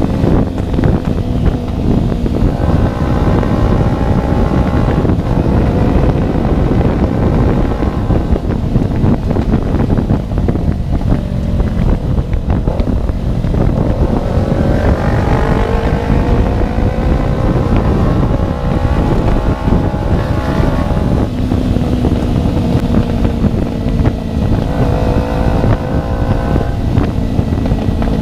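Kawasaki Ninja 250fi parallel-twin engine running with no exhaust fitted, revving up and easing off as the bike is ridden, with wind noise on the microphone.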